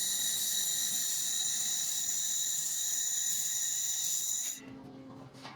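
LM-2000W fiber laser welding gun firing: a steady high hiss with a thin whine over it, cutting off suddenly about four and a half seconds in.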